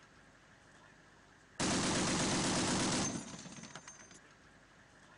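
Turret-mounted heavy machine gun firing one rapid burst of about a second and a half, starting about a second and a half in, with its echo trailing off afterward.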